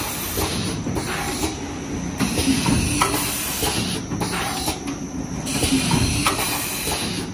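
Paper cake cup forming machine running: a continuous mechanical clatter and rumble, with about one hiss of air a second as it cycles.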